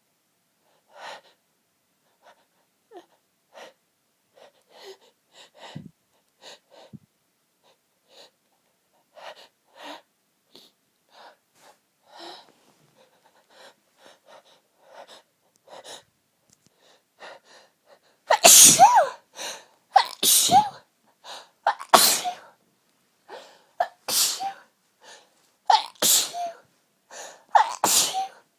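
A person's short, faint catches of breath while sneezes are held back. About two-thirds of the way in, the held-back fit breaks into a run of loud sneezes, about eight of them, one every second or two.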